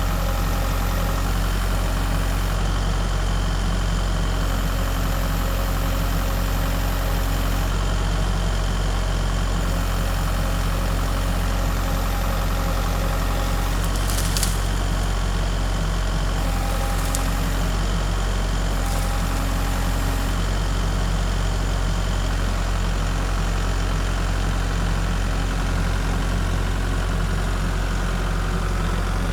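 An engine running steadily at an even, unchanging speed, a constant low hum with no revving.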